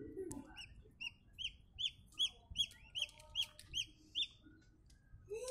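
Peafowl chicks peeping: a run of about a dozen short, high peeps, roughly three a second, starting about a second in and stopping a little after four seconds.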